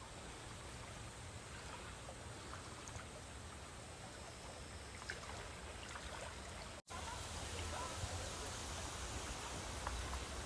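Faint outdoor ambience in woodland: a steady hiss with a low rumble underneath and a few faint ticks, broken by a brief dropout about two-thirds of the way through.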